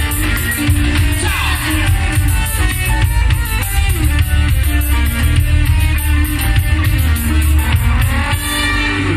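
Grupero band playing live through a PA, with a drum kit keeping a steady beat over a heavy bass line.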